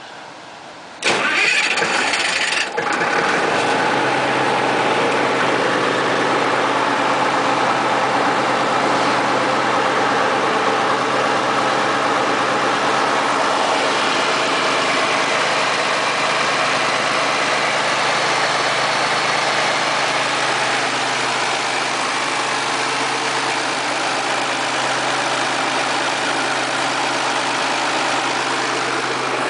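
Turbocharged diesel engine of a MEP-006A 60 kW military generator set starting: the starter cranks briefly about a second in, the engine catches, and it settles into a steady idle to warm up.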